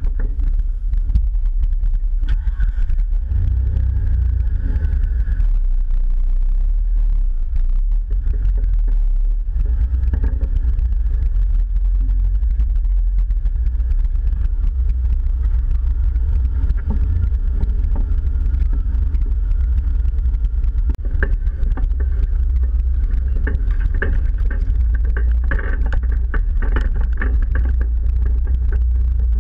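Jeep engine running at low trail speed, heard as a heavy, steady low rumble, with scattered knocks and rattles as the vehicle rolls over rocks and ruts.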